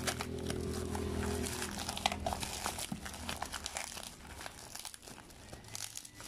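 Bubble wrap and plastic packaging crinkling and crackling in irregular bursts as hands unwrap a parcel.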